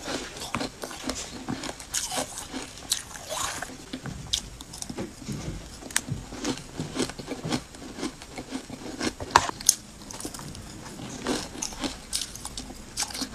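Ice dusted with matcha powder being bitten and chewed: a close run of irregular crisp crunches and crackles.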